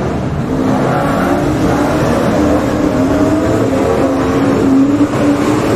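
Dirt-track speedway race cars' engines running hard as the cars race past, their pitch rising and falling as they rev through the corners.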